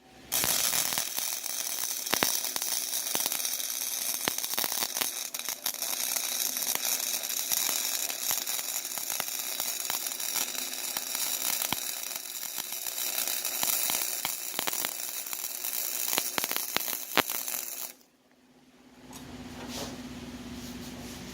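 Electric arc welding: a steady crackling sizzle of the arc, with sharp pops through it. It runs one long bead and cuts off abruptly near the end, after which a low steady hum comes in.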